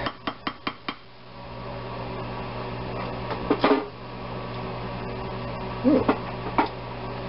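A wooden spoon tapped quickly about five times on the rim of a glass bowl, then a steady electric appliance hum, with two short vocal sounds from a person a few seconds in.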